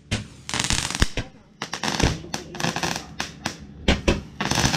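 Fountain firework spraying sparks, hissing in repeated gushes with many sharp crackles and pops.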